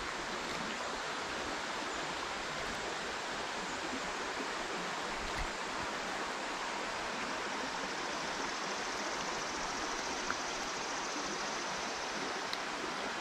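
Shallow creek water running over rocks: a steady, even rush.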